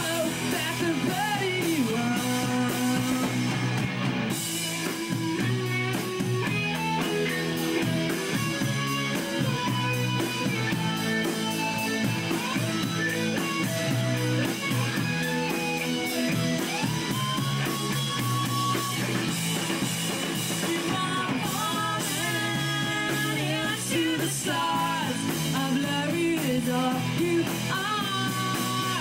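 Live rock band playing: distorted electric guitars over bass and a drum kit, with gliding melodic lines above.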